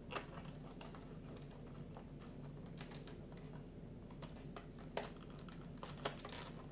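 Light, irregular clicks and taps of printed 3D puzzle pieces being handled and pressed into place on the model, the sharpest about five and six seconds in.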